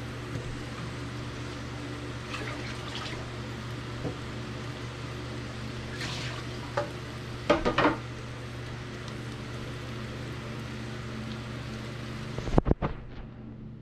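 Whole squid sizzling on a ridged stovetop grill pan over a gas burner: a steady hiss. Near the end comes a quick run of clatters as the squid are turned over, and the hiss drops off.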